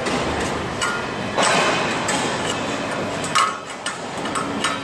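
Steel bar striking freshly welded steel studs to knock off the ceramic ferrules left from stud welding, several sharp metallic clinks and knocks, the loudest about three and a half seconds in.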